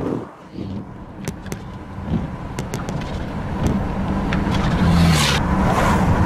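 Road traffic: a car passing on the road, its rush of tyre noise swelling about five seconds in, over a steady low engine hum with scattered light clicks.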